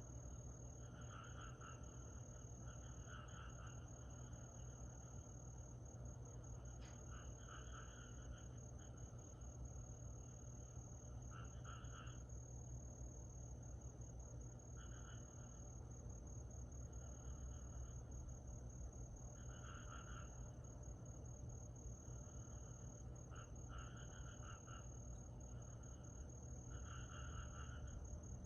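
Summer night insects trilling steadily on one high pitch. A lower, pulsing call breaks in every few seconds, each lasting about a second, over a low hum.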